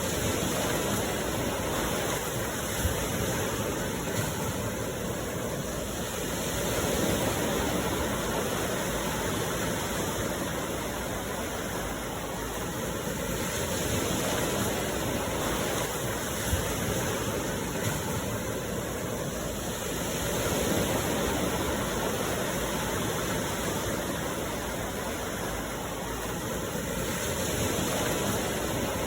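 Sea waves washing onto the shore, a steady rush that swells and eases about every six or seven seconds.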